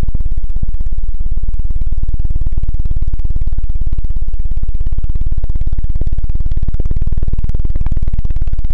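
'Helicopter' ASMR ear-cleaning: hands pat and flutter rapidly over the foam ears of a binaural microphone, giving a fast, even flutter of low thumps.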